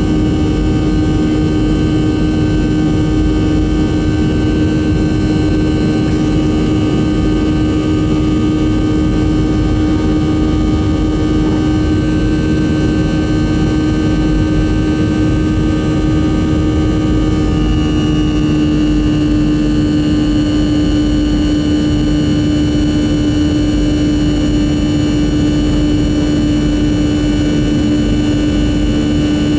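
Boeing 737-400's CFM56-3 jet engines running steadily: a loud, even rush with a strong low hum and several steady higher whines. Some of the higher whines shift slightly in pitch about two-thirds of the way through.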